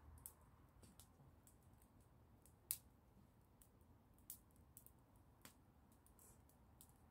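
Small wood fire crackling faintly, with scattered sharp pops; the sharpest comes a little under three seconds in.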